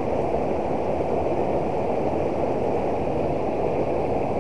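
Fast-flowing river rushing over rocks and a small weir: a steady, even wash of water noise. The river is running high and fast after days of rain.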